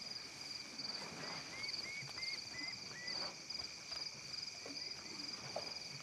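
Night chorus of insects: a high chirping pulsing just under twice a second over a steady buzz. A short rising call repeats about six times in quick succession from about a second in.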